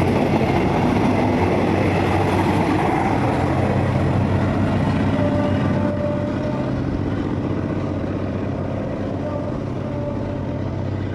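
Alsthom 4218 diesel-electric locomotive's engine running with a steady low hum, the overall sound easing slightly about halfway through.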